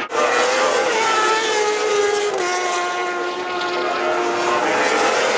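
Racing motorcycle engine running at high revs, its pitch falling in steps over the first few seconds, then rising again near the end.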